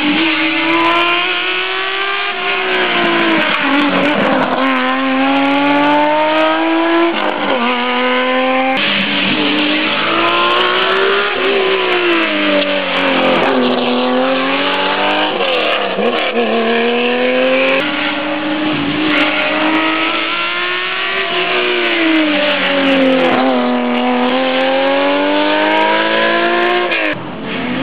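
Historic rally cars, Porsche 911s among them, accelerating hard through bends. The engine note climbs and drops again and again as the drivers shift gear and lift off. The sound jumps abruptly twice, where separate passes are cut together.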